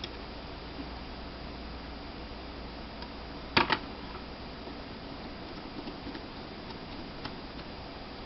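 Faint small ticks of screws being worked into a laptop hard drive's case with a small Phillips screwdriver, over a steady hiss. About three and a half seconds in there is a sharp double click, the loudest sound.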